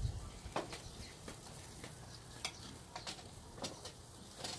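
Faint sizzling with scattered sharp crackles and pops, about one a second, from oysters cooking in the shell as their juices bubble up.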